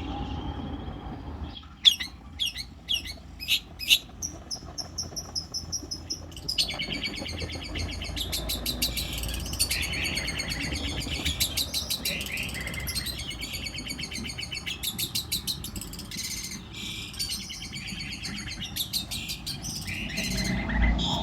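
Long-tailed shrike (cendet) singing: a few sharp, loud calls in the first few seconds, then a long run of fast, chattering high notes.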